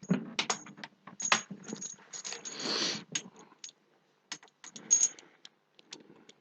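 Coax cable and its metal PL259 plug being handled on a bench: a string of clicks and metallic clinks, with a longer scraping rustle about halfway through.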